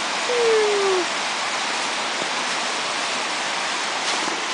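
Steady rushing noise like running water. Near the start there is a short voice-like tone that falls in pitch.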